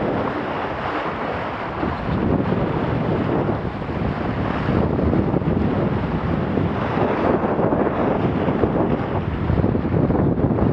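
Wind buffeting the microphone over the steady rush and splash of water along the hull of a Laser sailing dinghy planing at 8 to 9 knots.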